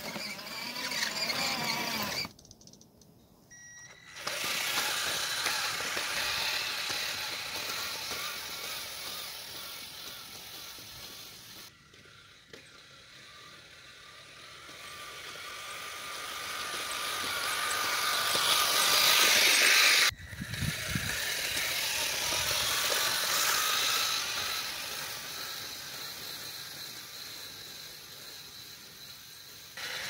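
Radio-controlled model snowcats running on their tracks through snow: the whine of small electric drive motors and gearboxes, wavering with the throttle, over the churn of tracks and blade in the snow. The sound swells for a few seconds and then cuts off abruptly several times where the shots change.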